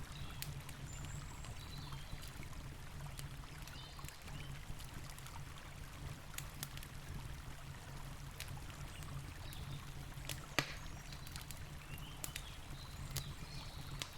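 Wood campfire crackling with scattered sharp pops, one louder pop about ten seconds in, over the steady rush of a river.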